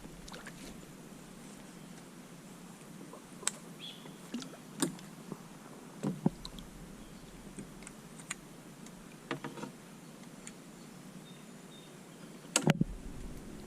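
Scattered light knocks and clicks of gear being handled in a plastic kayak, about eight in all, the loudest a quick pair near the end, over a quiet outdoor background.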